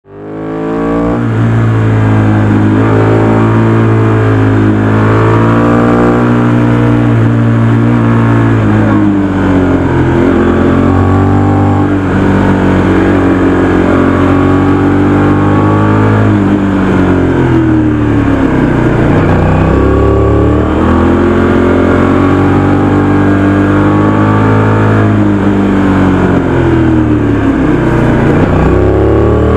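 Aprilia RS 660's 659 cc parallel-twin engine on its stock exhaust, running hard on the road. The revs rise and fall repeatedly as it accelerates and slows, with deep drops in pitch about two-thirds of the way through and again near the end.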